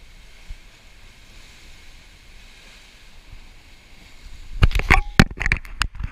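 Surf washing against rocks with wind on the microphone, a steady hiss. About four and a half seconds in, a rapid run of loud irregular knocks and rubbing right at the microphone as the camera is handled.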